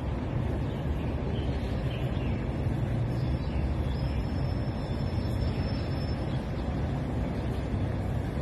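Steady low rumble of road traffic, with a faint thin high tone for a few seconds in the middle.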